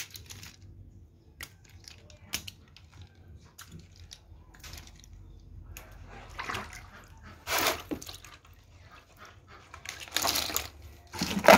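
Water splashing in a few short bursts, with scattered small clicks and knocks, as freshly caught fish and snails are handled in a plastic basket and a basin of water.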